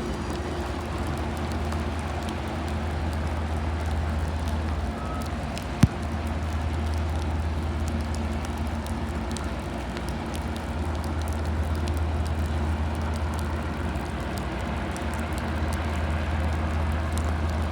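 Steady rain falling, with a low steady rumble underneath from a departing lake freighter. A single sharp knock comes about six seconds in.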